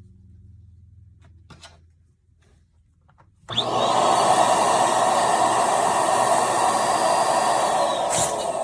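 Electric balloon pump switching on suddenly about three and a half seconds in and running steadily, blowing air to inflate 11-inch latex balloons. A few faint handling clicks come before it.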